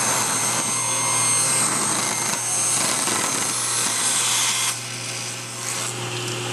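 Table saw running with its blade cutting through wood for nearly five seconds. The cutting noise drops off about five seconds in and the saw keeps spinning freely.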